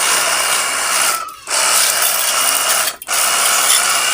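Pressure washer running, its jet of water spraying onto the motorcycle's fuel tank as a steady hissing rush. The spray cuts out briefly twice, just over a second in and again at about three seconds.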